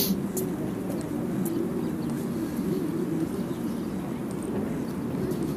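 Street ambience: a steady rumble of traffic with faint scattered ticks.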